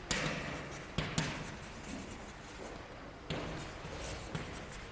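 Chalk writing on a blackboard: faint scratching strokes broken by a few short, sharp taps of the chalk on the board.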